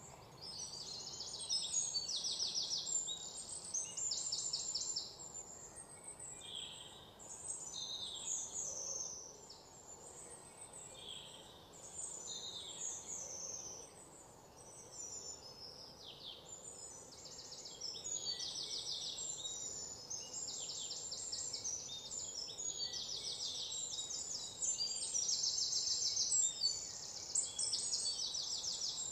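Birds chirping, with repeated short high trills and falling chirps.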